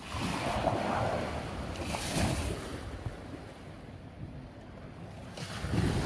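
Small Mediterranean waves washing up a sandy beach: a surge of foamy hiss in the first second and another about two seconds in, then a softer wash as the water draws back, with some wind on the microphone.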